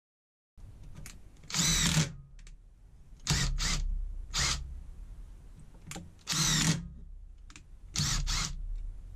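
Parkside PDSSA 20-Li A1 cordless impact driver driving a screw into a block of timber. It is triggered in about five short bursts of a second or less, its motor whine rising and falling with each pull of the trigger.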